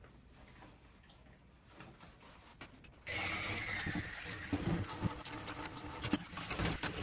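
Faint handling noises, then about three seconds in a kitchen tap is turned on and water runs steadily into a stainless steel sink, with clinks and knocks of pots and lids being handled and washed.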